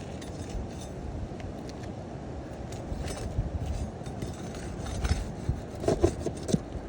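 Flat pry bar scraping and prying under asphalt roof shingles, with scattered clicks and rasps. The activity picks up after about five seconds, with a few short squeaking scrapes near the end.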